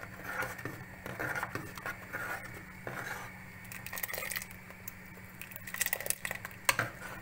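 A spoon stirring a pot of simmering harira, scraping and clinking against the pot, with a few sharper clinks near the end.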